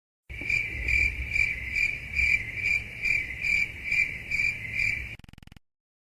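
Cricket chirping sound effect, the well-known 'awkward silence' meme: a steady run of about eleven high chirps, a little over two a second, that cuts off abruptly about five seconds in.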